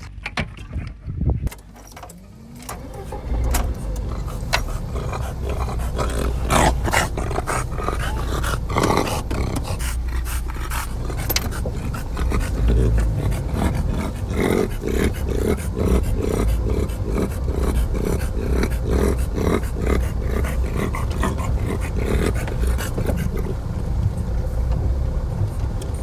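Small car's engine starting a few seconds in and then idling, heard from inside the cabin. Over it, a French bulldog pants close by in a steady rhythm, with scattered knocks and rustling.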